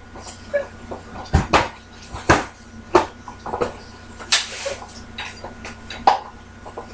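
Scattered sharp clicks and knocks of the plastic case and circuit board of an APC Back-UPS ES725 battery backup being pushed and worked into alignment, with one short scraping hiss about midway.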